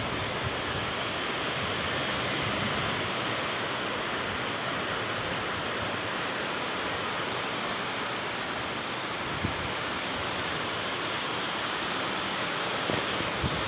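Heavy rain falling steadily on a flat, waterlogged concrete roof, an even hiss of drops splashing into puddles.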